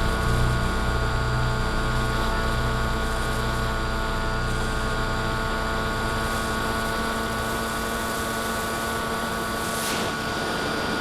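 FPV quadcopter drone's electric motors and propellers running with a steady, many-toned whine, the overall level easing off slowly.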